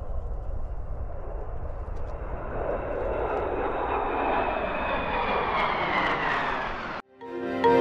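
Three F/A-18 Super Hornet fighter jets flying overhead in formation. Their engine noise swells, with a whine that falls in pitch as they pass. The sound cuts off suddenly about seven seconds in, and music starts.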